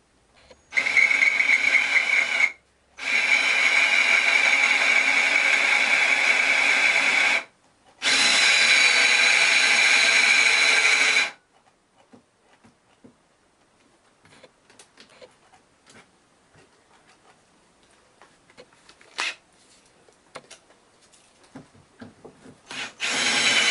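Cordless drill running in three bursts of a few seconds each as a twist bit bores through a metal mounting plate, with a steady high whine while it runs. Between runs and after them come light clicks and scrapes, and the drill starts again near the end.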